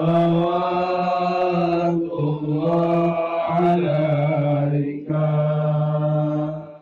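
A man's voice chanting an Islamic devotional chant in long held notes, in three drawn-out phrases with short breaks about two and five seconds in.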